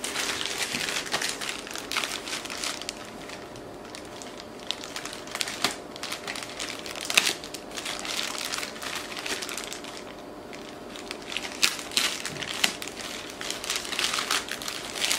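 A silver plastic courier pouch crinkling and rustling as it is cut and pulled open by hand, with sharper crackles now and then.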